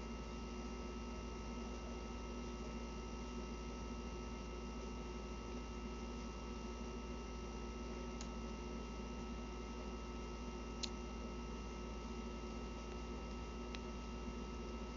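Steady low electrical hum with a light hiss in a small room, broken by three faint short clicks in the second half.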